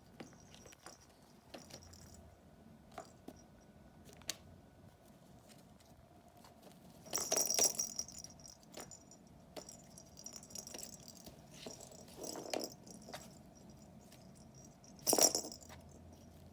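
A kitten pawing at a hunting box toy: scattered light clicks and clatters, with two louder rattling, scraping bursts, one about seven seconds in and one near the end.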